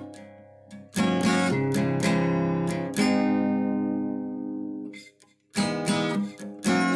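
Acoustic guitar freestyle jam: strummed chords, each left ringing and fading out, with a brief pause about five seconds in before the strumming picks up again.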